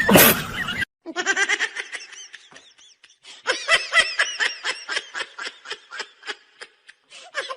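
High-pitched laughter: a long run of short, rhythmic ha-ha bursts, about four a second, after a loud burst of sound that cuts off abruptly just under a second in.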